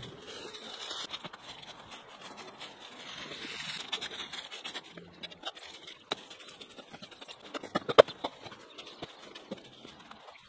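Cut branches and vines rustling and scraping as brush is pulled and handled, with a short cluster of sharp clacks about eight seconds in.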